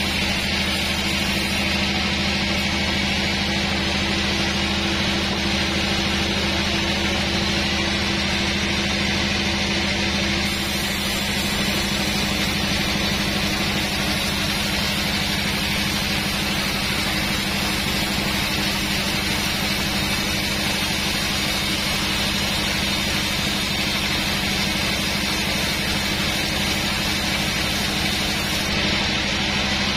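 Large sawmill band saw running steadily, its blade ripping lengthwise through a hard old teak log: a steady machine hum under the hiss of the cut. The cutting hiss grows brighter about ten seconds in.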